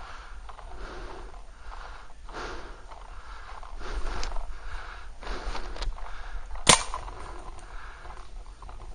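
Breathing close to the microphone inside a paintball mask, rising and falling about once a second, with a few faint pops and one loud, sharp paintball shot about two-thirds of the way in.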